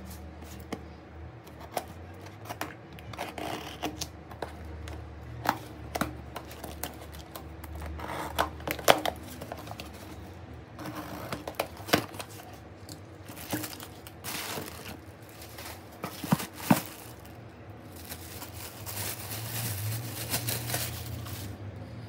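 Small clicks, taps and scraping of repair tools and parts being handled on a phone, with a few seconds of hiss near the end.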